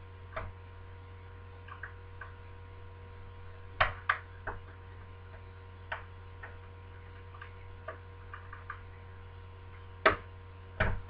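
Irregular small metallic clicks of a lock pick working the levers of a lever deadlock, with a few louder clicks about four seconds in and near the end, over a steady low hum.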